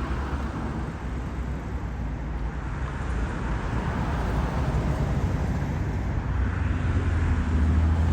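Road traffic: vehicle engines and tyre noise, with a low engine hum that grows stronger near the end.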